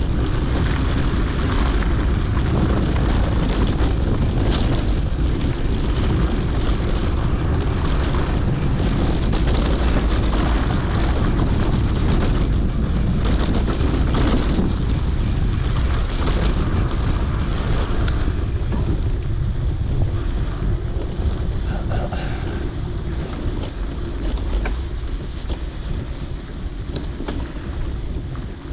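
Steady wind rumble buffeting a GoPro's microphone on a mountain bike being ridden along a dirt trail, mixed with the rolling noise of the bike. It eases a little near the end.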